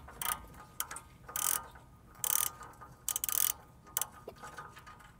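Hand socket ratchet clicking in several short bursts as a stubborn, sticking exhaust nut is backed off a stroke at a time, worked carefully so as not to snap the bolt.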